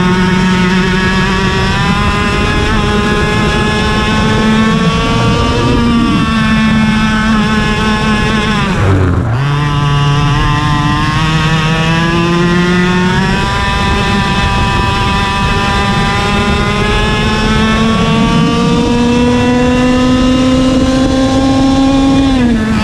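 IAME KA100 100cc two-stroke kart engine at racing speed, heard from onboard the kart. The engine note climbs steadily as the kart accelerates, dips briefly about six seconds in, drops sharply about nine seconds in as the throttle comes off and then climbs again, and falls once more near the end.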